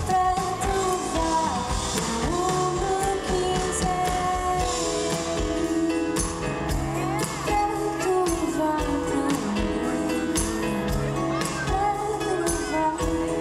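A woman singing a song live with a band: acoustic guitar and bass under her voice, with regular percussion strokes.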